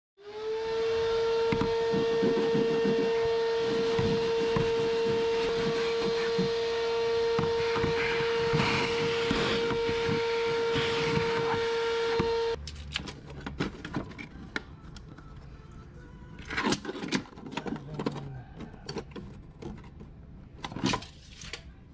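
Vacuum cleaner running with a steady high whine and crackles of debris going up the hose, then switched off suddenly about halfway through. Scattered clicks and scrapes of handling follow.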